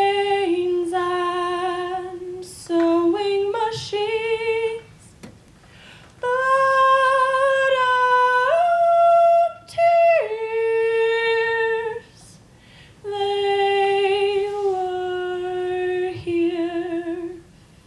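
A single a cappella voice singing long held notes without clear words, in phrases of two to four seconds separated by short pauses, the pitch stepping up and down between notes.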